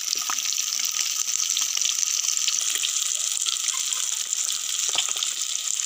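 Fish pieces sizzling steadily in hot mustard oil in a wok, with scattered small crackles. The pieces are fried reddish-brown and almost done.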